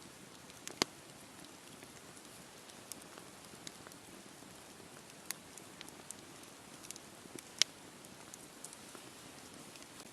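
Wood campfire burning: a steady soft hiss with scattered sharp crackles and pops, two louder pops about a second in and near the end.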